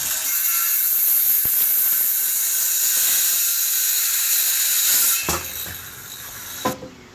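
A loud, steady hiss that cuts off suddenly about five seconds in, followed by a single sharp click near the end.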